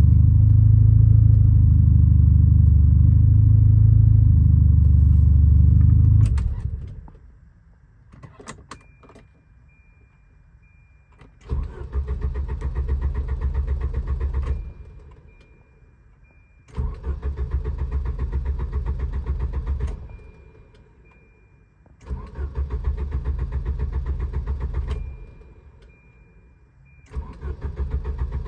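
Volvo 740 engine cranked by its starter motor in four bursts of about three seconds each, turning over with a fast, even rhythm but never catching: a crank/no-start fault. A steady high tone sounds in the pauses between attempts. A loud low rumble fills the first six seconds and then stops abruptly.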